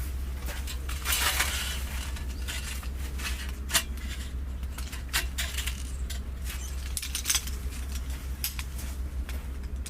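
Scattered light clicks and clinks of hard objects being handled, over a steady low rumble.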